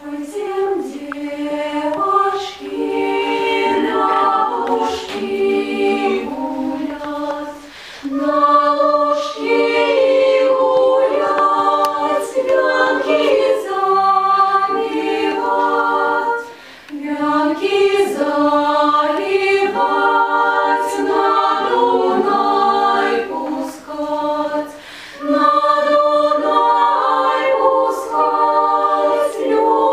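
Female vocal ensemble singing a Belarusian folk song arrangement a cappella in several-part harmony, in phrases separated by brief breaths.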